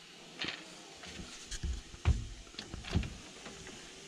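Heavy boat batteries being shifted and pushed into their compartment: a few knocks and scrapes of the battery cases, the loudest a deep thump about two seconds in.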